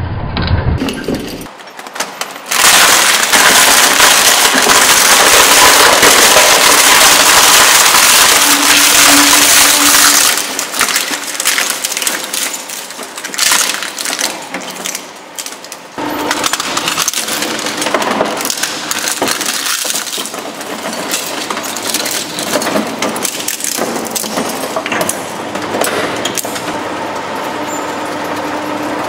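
Twin-shaft shredder's steel cutters crushing and tearing objects, with loud, dense crunching and crackling from about two seconds in. The crunching drops to quieter, broken grinding about ten seconds in and picks up again as a steady crackle about sixteen seconds in.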